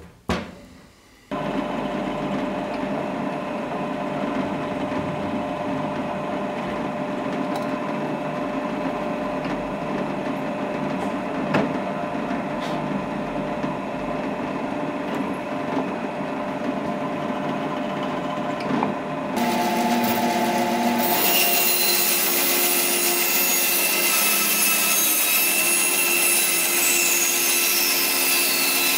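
A short knock, then a drill press motor runs steadily with the knife's wooden-scaled handle clamped under the bit. About twenty seconds in, a band saw starts cutting wood, louder and hissier, and runs on.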